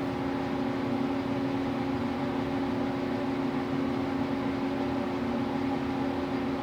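Steady mechanical hum of an elevator car in motion, with two steady low tones over an even whirr.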